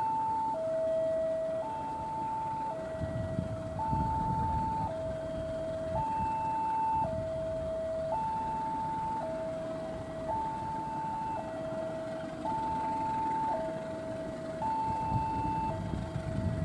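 Level-crossing warning alarm sounding a steady hi-lo two-tone signal, each tone held about a second, over the low rumble of a diesel-electric locomotive hauling a passenger train, which swells about three seconds in and again near the end.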